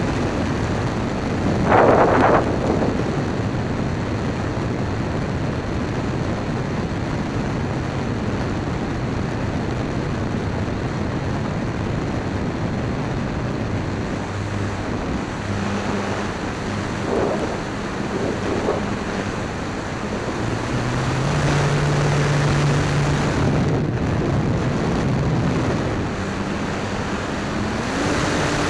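Electric motor and propeller of a Dynam Waco RC biplane in flight, heard from a camera on the airframe, with wind rushing over the microphone. The motor's tone steps up and down in pitch with throttle changes and grows louder for a few seconds after the middle, and a brief loud gust of wind comes about two seconds in.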